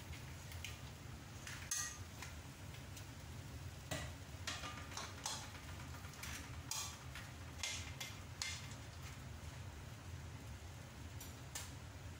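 Cookware clinking and knocking as a frying pan of raw shrimp and squid is tipped into a large wok, with scattered short clicks, most of them between about four and nine seconds in, over a steady low hum.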